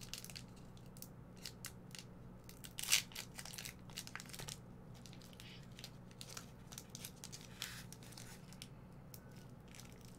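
Crinkling of a foil Pokémon card booster pack wrapper being handled, heard as scattered short crackles with one louder crackle about three seconds in, over a faint steady hum.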